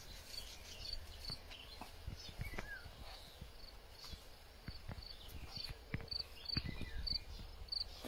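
Outdoor ambience: a short high chirp repeating about twice a second, with a few other brief bird calls. There are occasional soft knocks and a low rumble on the microphone.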